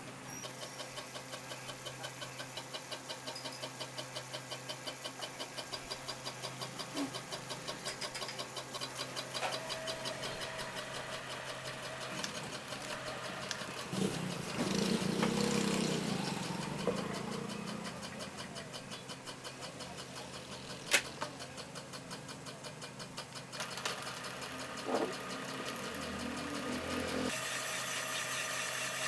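Engine running with an even, rapid pulse. It swells louder for a couple of seconds midway, and a single sharp click comes about two-thirds of the way through.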